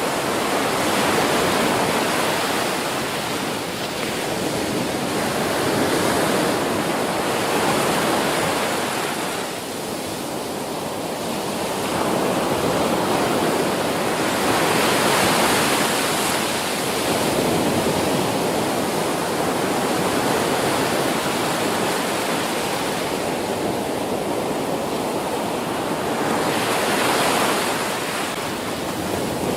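Ocean waves breaking on a beach: a steady wash of surf that swells and eases every few seconds.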